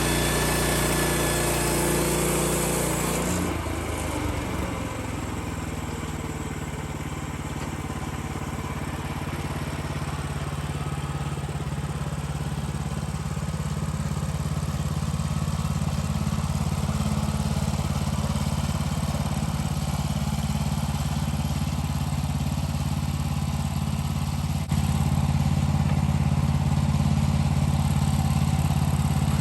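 Sawmill's gas engine running steadily. For about the first three seconds a rougher, hissing sound rides over it and then drops away, leaving a steady engine hum, which steps up a little near the end.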